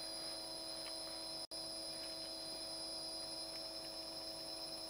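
Small brushless (BLDC) motor of a tool post grinder turning slowly, about 500 RPM, on a VESC speed controller. It gives a steady electronic hum and whine made of several fixed tones, which drops out for an instant about a second and a half in.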